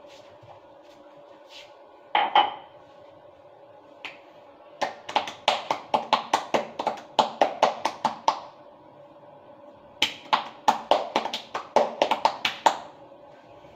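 A bare belly slapped with an open hand in two quick runs of about four or five slaps a second, the first a few seconds long and the second a little shorter after a brief pause. A single sharp knock comes about two seconds in, and a steady low hum runs underneath.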